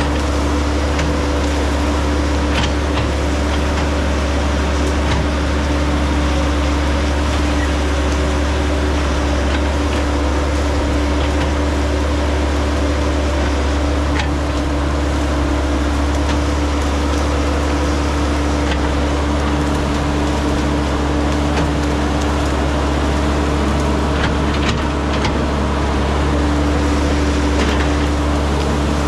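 Caterpillar 312 hydraulic excavator's diesel engine running steadily under load as the machine pushes through brush, with a constant low drone. Scattered short sharp cracks of branches breaking come now and then over the engine.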